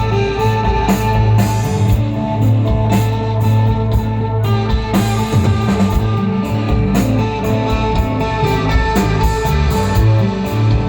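Rock band playing live: electric guitar ringing out sustained notes over a heavy bass line and drum kit.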